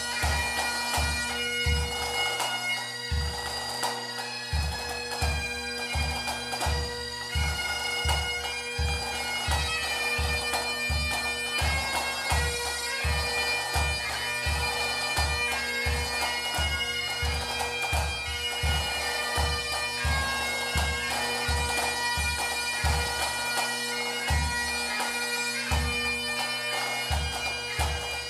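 Pipe band music: bagpipes playing a melody over their steady drones, with a bass drum beating about twice a second.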